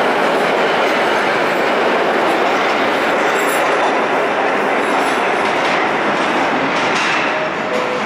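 Vintage R1–R9 'Arnine' subway train pulling out of a station: a loud, steady rumble and clatter of steel wheels on the rails as the last cars pass and the train draws away into the tunnel. It begins to fade about seven seconds in.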